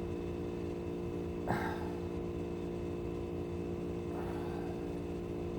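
Steady electrical mains hum, with one short click about a second and a half in and a fainter soft scrape about four seconds in.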